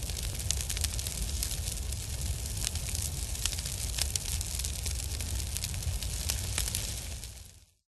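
Fire sound effect: a steady low rumble of flames with scattered sharp crackles, fading out about seven seconds in.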